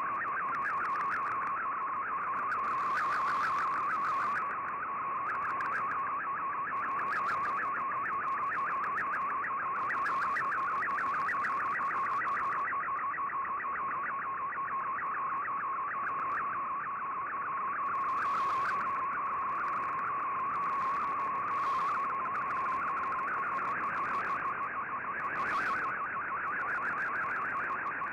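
Shortwave radio receiving a digital picture transmission in MFSK picture mode: a fast, warbling data tone over steady static hiss, as a colour image is decoded line by line.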